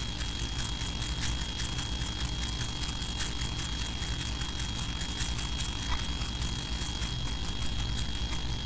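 Steady low rumble and hiss of a large hall's background noise, with a thin steady high whine and scattered faint clicks.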